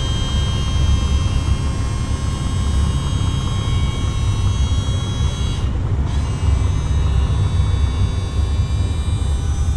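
Electric-hydraulic cab-tilt pump of a Scania R450 running steadily as the cab tips forward: a low hum and rumble with a steady high whine, which drops away a little over halfway through.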